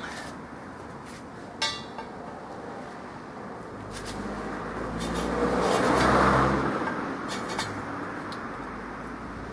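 A vehicle passing, a low hum and rush that builds, peaks about six seconds in and fades. A single sharp metallic clink comes a little under two seconds in.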